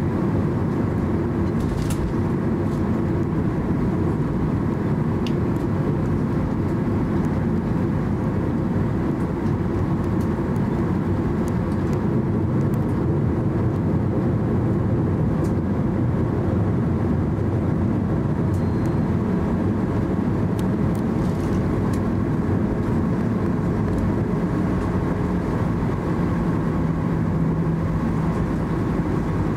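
Cabin noise inside a Boeing 737-800 taxiing: its CFM56-7B turbofan engines at taxi power give a steady rumble and hum, with a few faint clicks.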